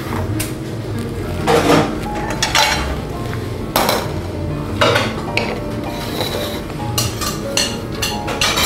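Metal cooking pots clanking on a gas stove's iron grate as a pot is set down on the burner, a series of sharp knocks and clinks spread over several seconds.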